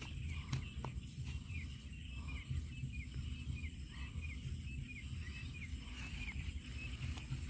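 A bird calling over and over in short falling chirps, about two or three a second, over a steady low rumble.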